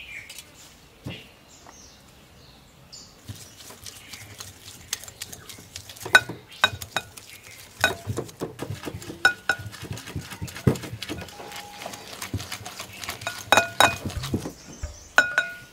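Wire whisk beating butter in a cut-glass bowl: rapid, irregular clinks of metal wires striking the glass, each with a short ring. They start about three seconds in and get faster and louder from about six seconds.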